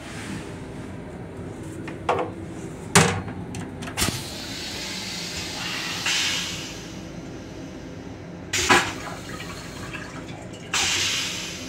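LIRR M7 railcar toilet flushing: several sharp clunks, and two bursts of hissing water as the stainless-steel bowl is rinsed, the second starting suddenly near the end, over a steady low hum.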